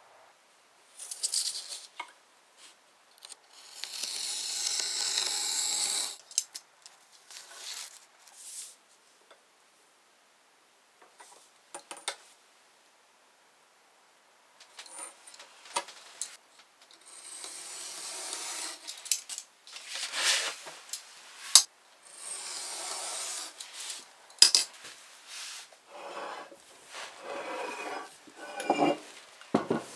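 Paper being worked by hand: sheets rubbed, creased and slid, in long scraping strokes. A steel ruler clicks now and then as it is set down on the bench. Near the end a heavy stone weight scrapes on the wooden bench top.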